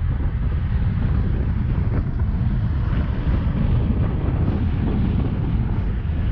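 Wind buffeting a bonnet-mounted microphone on a vehicle driving a dirt road, over a steady low rumble of tyres and engine.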